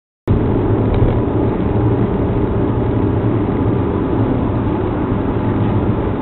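Car driving: steady engine and road noise heard from inside the vehicle, starting abruptly a moment in after dead silence.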